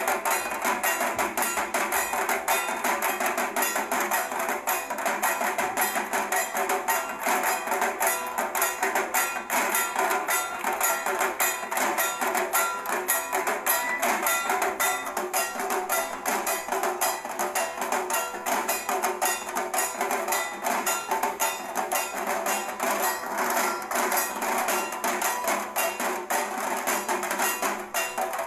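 Music with fast, continuous percussion: a dense run of quick, sharp strokes that keeps going without a break.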